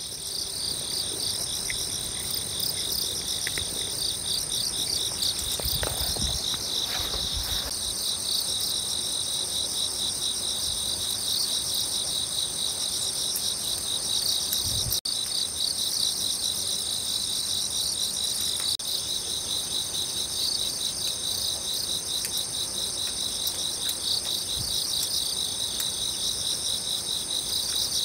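A dense chorus of insects chirping at a high pitch in fast, even pulses, without a break.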